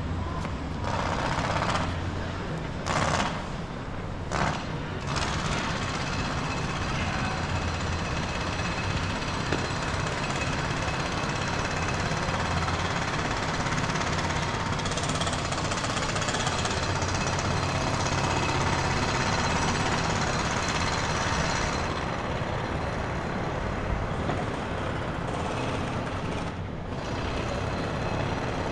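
Jackhammer pounding steadily amid city street traffic noise, with a couple of short louder bangs a few seconds in.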